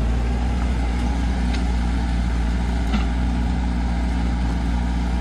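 Mini excavator's diesel engine running steadily: a low, even hum, with a faint click or two about one and a half and three seconds in.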